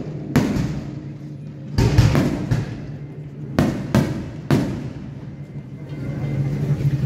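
Firecrackers going off in about eight sharp, echoing bangs in irregular clusters over the first four and a half seconds, loudest about two seconds in, over a low steady drone.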